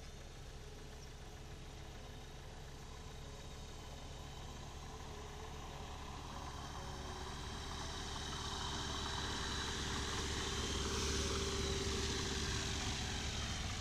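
Small plane's engine and propeller, growing steadily louder as it approaches, loudest about eleven seconds in, with the pitch dropping as it passes.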